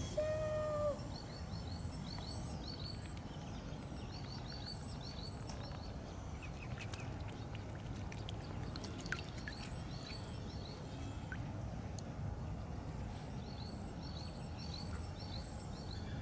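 Outdoor canal-side ambience: a steady low rumble with small songbirds chirping in short repeated phrases. A clear pitched call ends about a second in, and a few small water clicks and drips come in the middle as the mute swan dips its bill.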